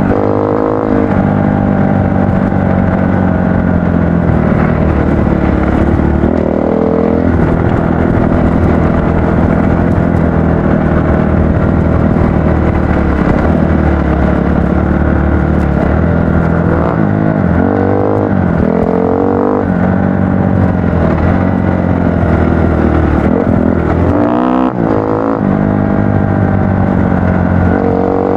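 Kawasaki KX-F dirt bike engine running on a trail, its pitch rising and falling with the throttle as it revs up and eases off again and again.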